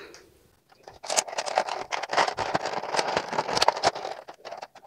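Clear plastic blister packaging crinkling and crackling as it is handled, a dense run of crackles that begins about a second in.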